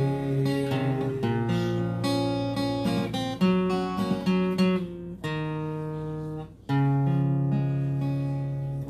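Acoustic guitar played alone, picked notes and strummed chords moving through a short instrumental passage. After a brief pause about six and a half seconds in, a chord is struck and left ringing, slowly fading.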